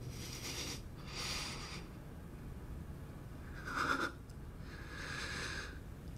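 A person breathing heavily: four audible breaths in and out, one with a brief voiced catch about four seconds in.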